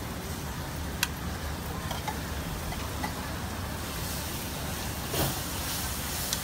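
Squid sizzling on a hot flat-top griddle over a steady hum of street traffic. The hiss grows louder about four seconds in, as the squid is pressed down, and a few light clicks sound about a second apart.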